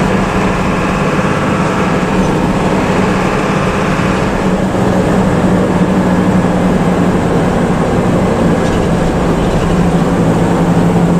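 Intercity bus's diesel engine and exhaust running steadily while the bus is under way, a low drone with road noise that eases slightly lower in pitch near the end.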